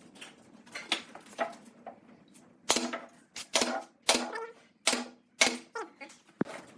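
A series of about ten sharp, irregularly spaced knocks and taps, several followed by a brief ringing tone, as of hard objects being struck or set down during workshop handling.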